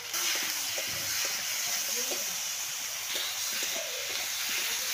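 Potato wedges and tomato sautéing in hot oil in an iron kadai, a steady sizzling hiss, with a metal spoon scraping and knocking against the pan as they are stirred.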